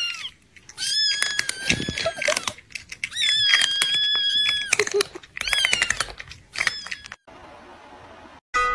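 A cat eating while it cries out: several long, high-pitched cries, one held for about a second and a half, amid many quick crunchy clicks of chewing. Near the end the cries stop and a faint steady hiss runs for about a second.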